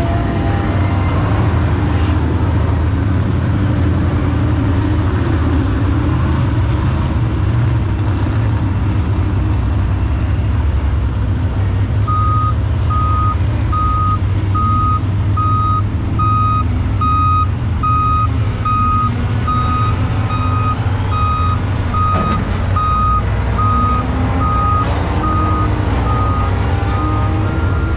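A heavy vehicle's engine running steadily. About halfway through, a reversing alarm starts beeping a little more than once a second as the vehicle backs up.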